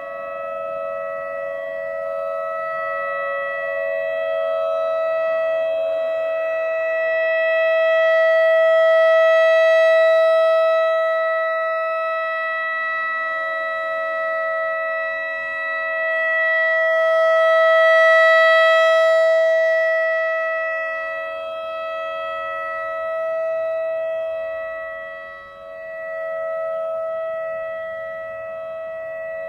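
Whelen WS-3000 electronic outdoor warning siren sounding a steady single-pitch alert tone during a test. The tone swells louder and fades over several seconds as the rotating horn sweeps past.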